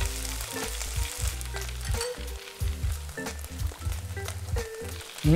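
Flat rice noodles and shrimp sizzling in a hot wok while being stir-fried, tossed with chopsticks and a spatula that click and scrape against the pan many times.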